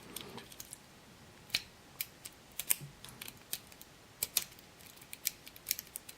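Metal lock-pick rake clicking and scraping against the pins of a 7-pin dimple lock as it is wiggled side to side: scattered sharp, irregular ticks.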